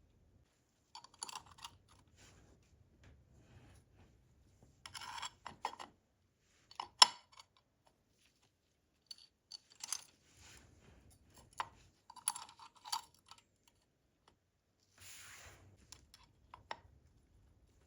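Irregular clicks, taps and light clatter of hand tools and engine parts being handled during a motorcycle engine assembly. The loudest is a single sharp click about seven seconds in.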